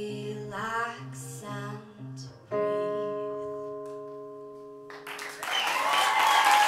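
Acoustic guitar picking the closing notes of a song, with a last sung note about a second in. A final chord is struck about two and a half seconds in and rings out, fading. Audience applause starts about five seconds in and grows louder.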